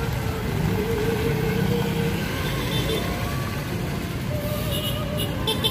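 Motor vehicles of a road caravan running: a steady low engine and traffic rumble, with a drawn-out tone over it in the first couple of seconds and crackly bursts near the end.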